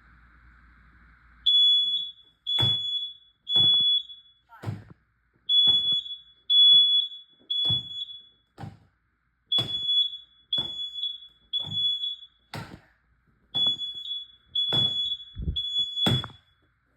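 Smoke alarm going off about a second and a half in, sounding its high-pitched three-beep pattern, each group of three beeps repeating about every four seconds. Sharp clicks or knocks come roughly once a second throughout.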